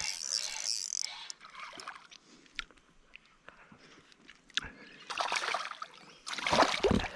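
Water splashing and sloshing at a kayak, in two short bursts in the last two seconds.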